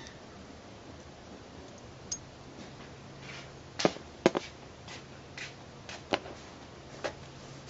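Small steel parts of a Mauser C96 pistol's locking frame clicking and tapping as they are handled and set down: about half a dozen short, sharp clicks spread over a few seconds, the loudest pair close together near the middle.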